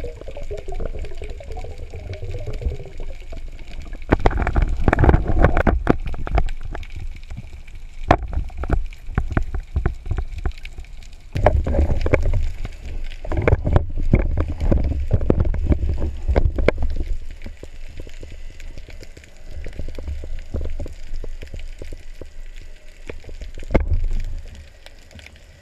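Underwater sound from a camera mounted on a speargun: a steady low rumble of moving water, with loud stretches of churning water and knocks about four seconds in and again from about eleven to seventeen seconds, as a diver handles a speared white sea bream.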